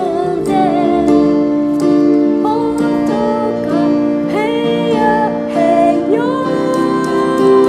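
A woman singing a slow ballad, accompanied by a Yamaha electronic keyboard playing sustained chords under her voice.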